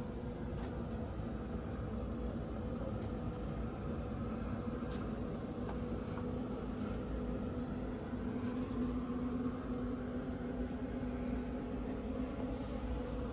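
Steady indoor machine hum with a low held tone, like ventilation or air-conditioning room tone, with a few faint clicks.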